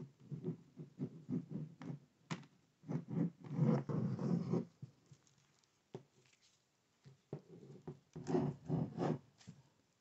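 Plastic pry tool scraping and clicking along the seam of a Lenovo IdeaPad 1i laptop's bottom cover as its plastic clips are worked loose, in three bursts of scratching with a few sharp clicks between.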